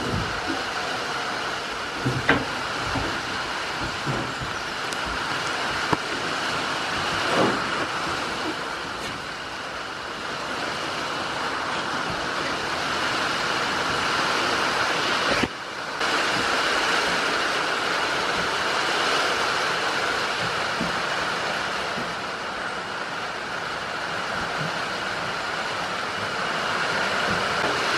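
Heavy rain falling steadily on a shed's corrugated roof, an even hiss, with a few close knocks and bumps in the first eight seconds.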